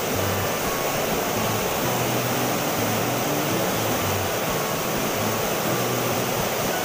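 River water rushing over a small rocky cascade, a steady, even rushing noise.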